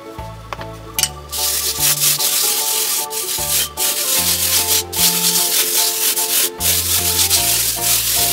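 Colored sand being rubbed by hand across an adhesive sand-art sheet: a dense, rasping rustle that starts about a second in, with a few brief breaks, over background music.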